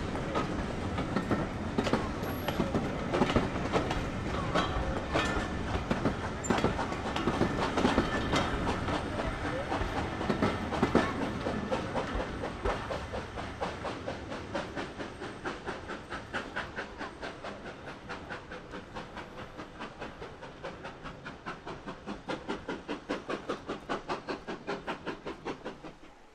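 Steam-hauled passenger train of coaches rolling past and away, wheels rumbling and clattering over the rail joints. As it draws off the rumble fades and a regular beat of about four strokes a second comes through.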